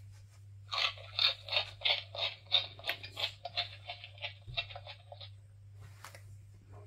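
Electronic munching sound from a Pets Alive toy rabbit fed its toy carrot: a quick run of crunchy chewing noises, about four or five a second, for about four seconds, played through the toy's small speaker.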